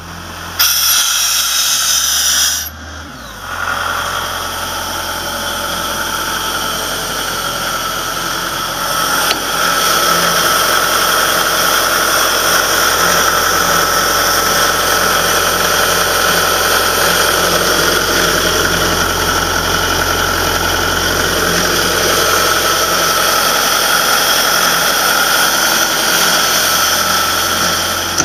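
Ingersoll Rand 185 rotary-screw air compressor running on its John Deere diesel: a steady engine drone with a high, constant whine over it. Near the start, compressed air hisses out of the service valve for about two seconds.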